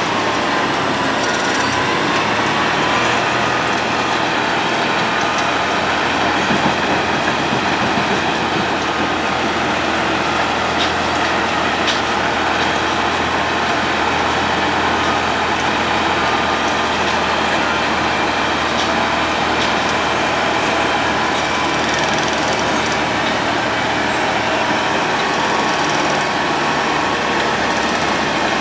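Road planer (cold milling machine) running steadily at work, its engine and milling drum making a loud, continuous grinding noise with no pauses.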